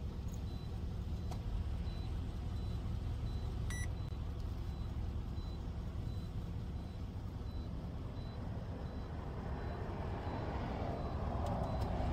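Steady low rumble of a parked vehicle idling, heard from inside the cab, with a faint high beep repeating at an even pace and a single click about four seconds in. A rush of noise swells near the end.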